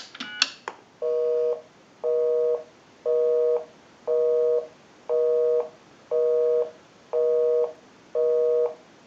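The last touch-tone digits dialed on a payphone, then a busy signal on the line: a two-tone beep pulsing on and off about once a second, meaning the called number is busy.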